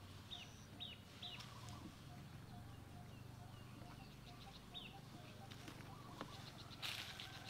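Faint, short high bird chirps that drop in pitch, a few close together in the first second and a half and another near five seconds in, over a quiet rural background; a brief rustling crackle starts near the end.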